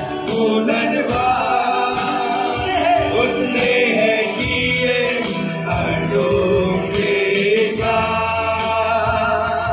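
Live Christian worship music: several men singing together into microphones over a strummed acoustic guitar and keyboard.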